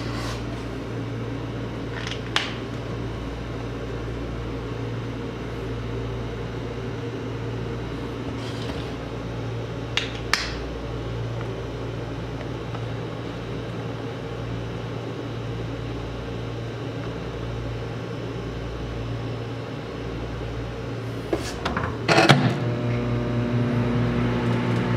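Microwave oven running with a steady low hum, broken by a few short sharp clicks: one about two seconds in, another about ten seconds in, and a louder cluster near the end, after which the hum gets fuller.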